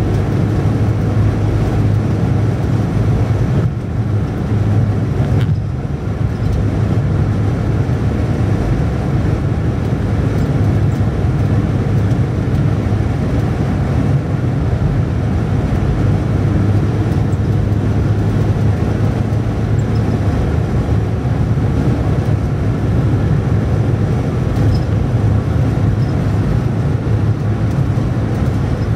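Car driving at a steady speed: constant road and engine noise with a low drone.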